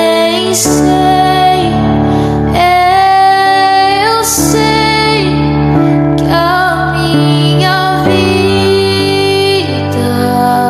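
Slow worship music: a woman singing long, gliding notes over sustained keyboard chords that change every few seconds.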